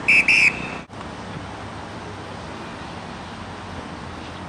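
Referee's whistle blown in two short, sharp blasts, then steady outdoor background noise.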